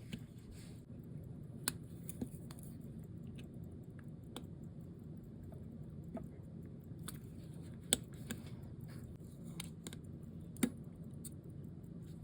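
Scattered small sharp clicks and ticks of metal tweezers and tools handling watch movement parts on a workbench, with a few louder taps, over a steady low room hum.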